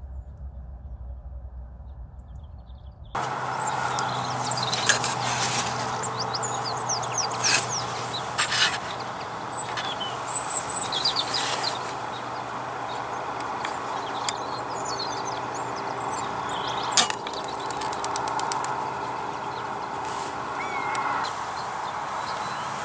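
Small birds chirping and calling in the open, with a few sharp clicks scattered through. A brief loud high chirp comes about ten seconds in. For the first three seconds there is only a faint low rumble.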